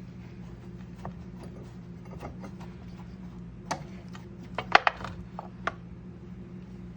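Hard objects being handled and knocked together: scattered light clicks and knocks, with a quick run of louder, sharp clacks about four to five seconds in, over a steady low hum.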